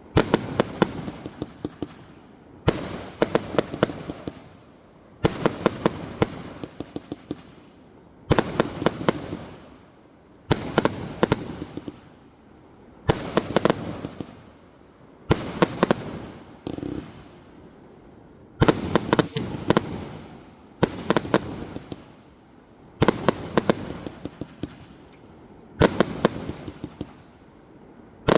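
Ineffable 100-shot firework cake firing in volleys: about a dozen times, a quick run of sharp bangs, each run trailing off in a fading tail before the next starts roughly two to three seconds later.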